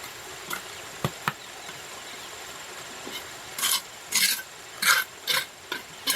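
A few light knocks, then from about halfway a run of short rasping strokes, about two a second, from a hand tool scraping or rubbing against a hard surface.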